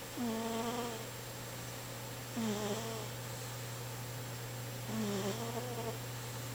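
Domestic cat snoring in its sleep: three short pitched snores about two and a half seconds apart, each dipping slightly in pitch at the start, over a steady low hum.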